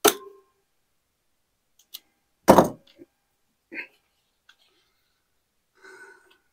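Handling noises from hand tools and the plastic back plate of a Honda EU3000is inverter generator as it is unscrewed: a sharp clack at the start, a heavier thunk about two and a half seconds in, the loudest, then a few light clicks and a short rustle near the end.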